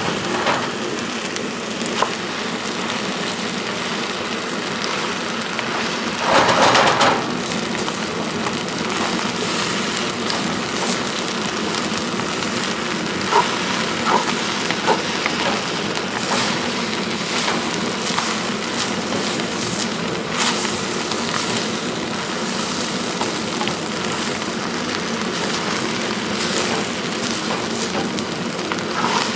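Fried rice sizzling steadily in a heavy wok, with scattered short clicks and scrapes as it is stirred, and a louder burst of sizzle about six seconds in.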